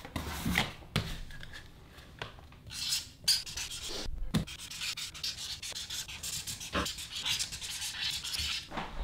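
Felt-tip marker scratching on a piece of cardboard in many quick strokes, with a few soft knocks.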